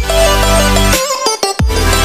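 Electronic background music with a heavy bass line and pitch sweeps that fall into the bass.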